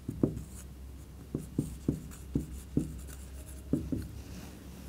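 Marker pen writing on a whiteboard: a run of short, unevenly spaced strokes and taps as the letters go down.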